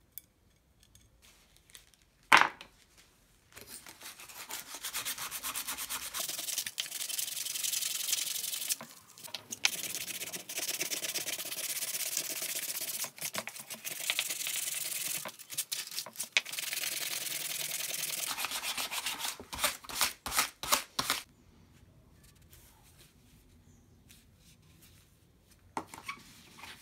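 Sandpaper rubbed back and forth by hand against a workpiece, in steady strokes lasting about seventeen seconds and ending in a few quick strokes. A single sharp knock comes about two seconds in, and a soft knock near the end.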